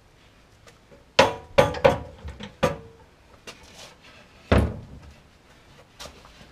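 A large glass rear windscreen being handled against a car's rear bodywork: a quick run of four sharp knocks with a short ring, starting about a second in, then one heavier, deeper thud a couple of seconds later.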